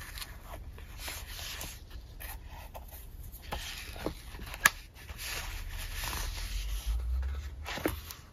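Paper pages and stickers rustling as a leather traveler's-notebook journal is closed and handled, with one sharp snap about halfway through as its elastic closure band is let go. Hands then rub and pat the leather cover, with a couple of small clicks near the end.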